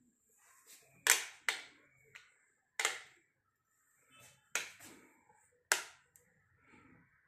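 A handful of sharp knocks at uneven intervals, each dying away quickly, with near quiet between them.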